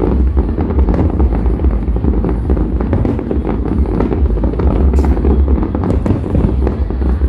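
Aerial fireworks going off in a dense, continuous barrage: many sharp cracks over a constant low rumble.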